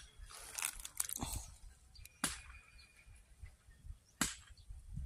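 Close handling noise: rustling and a few sharp clicks and taps as hands work a small fish off the hook.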